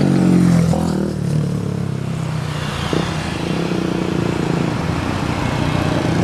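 Traffic of small motorcycles and scooters riding past at close range, several engines running together. One rides past loudest near the start, then a steady mixed engine hum continues.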